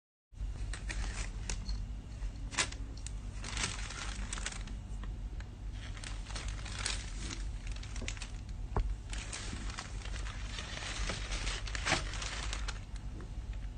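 Thin plastic carrier bag crinkling and rustling as a kitten moves about inside it: irregular spells of crackles with a few sharp snaps, over a steady low hum.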